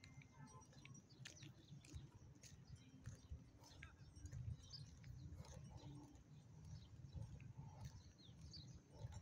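Near silence: faint outdoor ambience, a low steady rumble with scattered light clicks and a few faint chirps.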